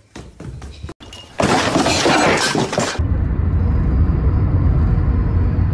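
A loud burst of noise for about a second and a half, then the steady low rumble of a car driving on the road, heard from inside the cabin.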